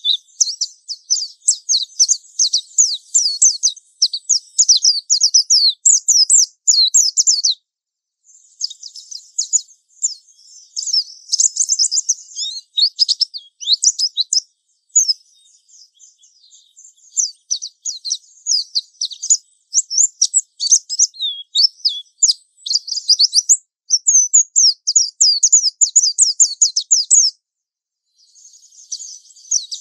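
Japanese white-eye (pleci) singing a long, fast, high-pitched twittering song, the continuous 'ngalas' style, in run-on phrases broken by short pauses about 8, 15 and 27 seconds in.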